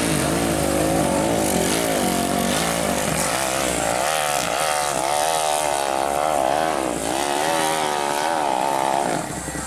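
Off-road dirt bike engine revving hard while climbing a steep dirt slope, its pitch rising and falling again and again as the throttle is worked over the bumps. The engine note drops away near the end.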